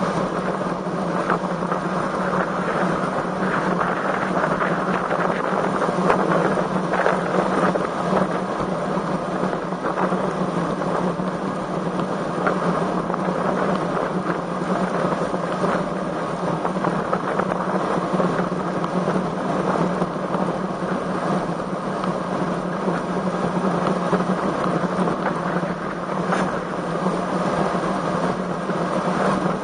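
Strong wind rushing over the microphone of a camera on a moving road bicycle, a steady loud rushing noise.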